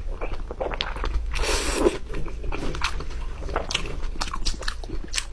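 Close-miked biting and chewing of giant saucy lion's head meatballs: irregular mouth clicks and short bursts of bite noise, the loudest bite about a second and a half in.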